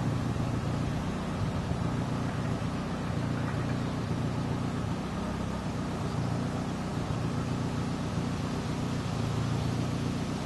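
Steady low rumble of machinery running, with a few steady hum tones in it.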